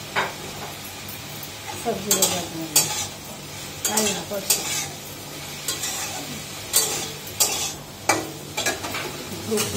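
Spatula scraping and stirring food in a steel kadai on a gas stove, in about ten short, irregular strokes, over a faint sizzle of frying.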